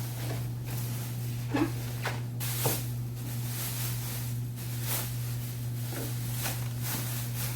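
Scattered light knocks, clicks and a brief rustle of things being handled, over a steady low hum.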